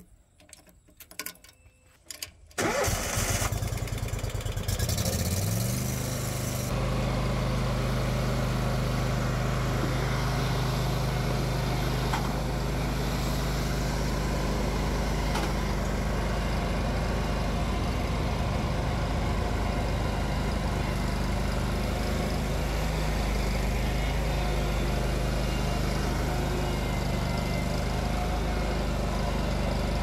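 Hustler Super S stand-on mower engine being started: a few faint key clicks, then about two and a half seconds in the starter cranks, the engine catches and its pitch rises for a few seconds before it settles into steady running. The engine keeps running without dying, now that the faulty plunger safety switch is bypassed with a fuse.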